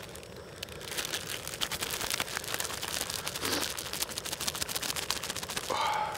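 Plastic zip-top bag crinkling rapidly as it is shaken and handled, coating pieces of squirrel meat in flour. The crackling starts about a second in and stops just before the end.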